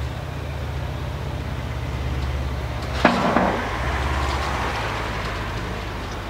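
Car transporter truck's diesel engine running with a steady, pulsing low rumble as it drives along the street. A single sharp clank comes about three seconds in.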